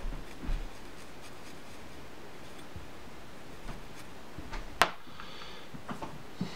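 Razor blade slicing through spun deer hair on a fly head: faint scratchy crunching with scattered small clicks, and one sharp click just before five seconds in.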